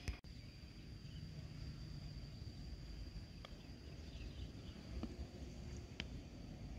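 Quiet open-air ambience: a steady high insect drone with low wind rumble on the microphone. A faint click about three and a half seconds in is the golf club striking the ball on a chip shot, with a couple more faint clicks later.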